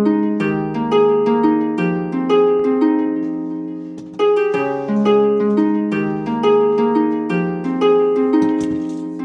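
Background music of plucked, harp-like notes playing a gently repeating melody, each note ringing and fading before the next.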